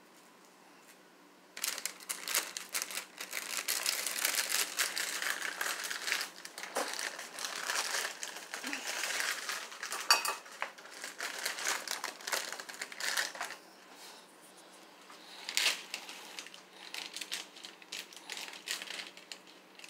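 A plastic bag of pancake mix crinkling and rustling as it is handled and opened, with a few sharper clicks mixed in. It starts about a second and a half in and eases briefly near the end.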